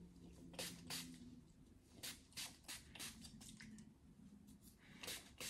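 Pump spray bottle squirting mist onto the scalp and braids in quick short sprays, about ten in all, in three clusters, the largest in the middle.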